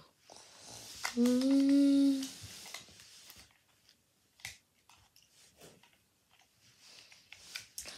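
A boy's voice holding one long note for about a second, then a few scattered light clicks and knocks from toys being handled.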